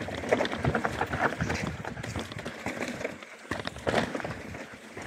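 Mountain bike (Canyon Spectral 125 trail bike) descending a rough dirt trail: tyres rattling over rocks and roots, with an irregular clatter of chain slap and suspension knocks. A brief lull comes a little after three seconds in.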